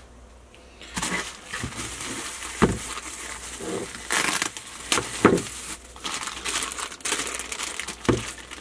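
Plastic packaging crinkling and rustling as it is handled, broken by a few sharp knocks and clicks.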